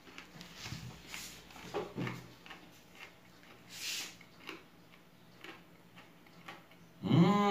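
A spoon scraping and clinking on a ceramic plate as a piece of omelette is scooped up, followed by faint clicks and smacks of eating. About seven seconds in, a loud, drawn-out 'mmm' of enjoyment begins.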